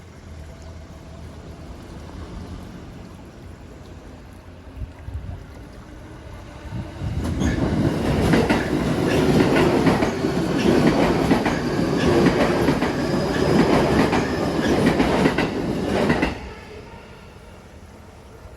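JR Nambu Line E233-series electric train passing over a level crossing at speed: a rising rumble as it approaches, then about nine seconds of loud, rapid clickety-clack from the wheels before the sound drops away suddenly as the last car clears.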